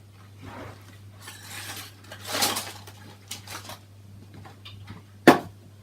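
Small cardboard box of a Lego set being opened and its contents handled: irregular rustling and scraping, with one sharp knock about five seconds in.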